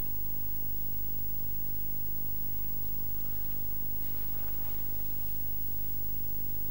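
Steady low electrical hum with a hiss over it, unchanging throughout.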